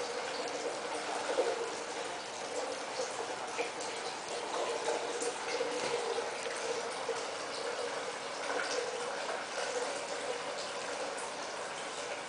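A self-moving plastic jar toy wobbling across a tile floor: a steady, irregular rattling and scraping with a wavering hum.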